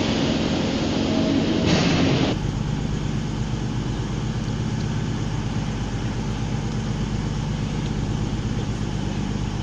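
Train noise at a station platform: a broad rush of sound that changes abruptly about two seconds in to a steady low engine hum with a deep rumble.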